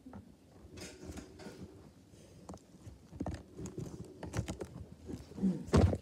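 Handling noise from a phone microphone: scattered clicks, rubbing and knocks as the phone moves against a shirt, with a loud bump near the end as it is swung up.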